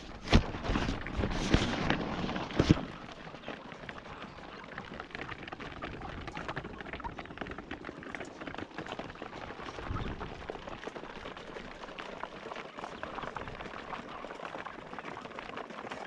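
A few sharp knocks and a rushing noise in the first three seconds, then a steady, dense patter of many chickens pecking feed from feeders.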